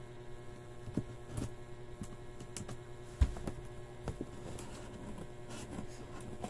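Hands and a small tool picking and cutting at packing tape on a cardboard box: irregular clicks, scratches and taps on the cardboard, with one heavier thump about three seconds in.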